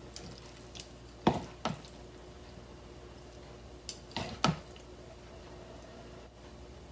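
Wooden chopsticks clicking against the bowl and a small serving cup as salad is lifted across: two light clicks about a second in and a short cluster around four seconds in, over a faint steady hum.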